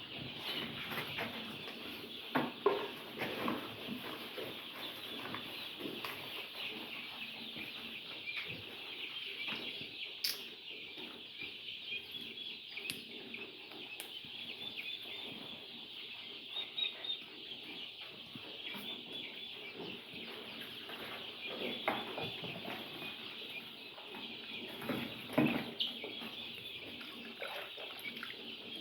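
A large flock of two-week-old layer chicks cheeping steadily, many small calls overlapping, with a few short knocks now and then.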